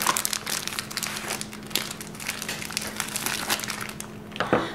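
Crinkling of a plastic bacon package as hands rummage in it and pull out slices, a rapid irregular crackly rustle.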